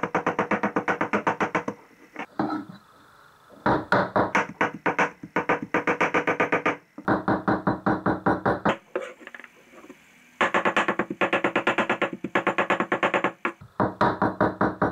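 Chef's knife rapidly mincing raw shrimp on a wooden cutting board, about seven or eight chops a second in five runs with short pauses between, a steady tone sounding under each run.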